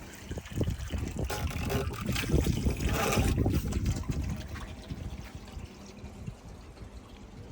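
Bosch Exxcel washing machine on a rinse cycle, water running and trickling into the drum, loudest in the middle and easing off towards the end.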